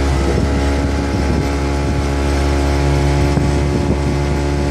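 Outboard motor of a small boat running steadily under way at an even, unchanging speed.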